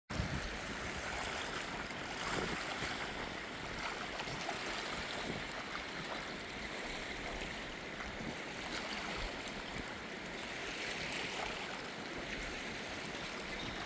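Steady wash of small waves on a lakeshore, with wind.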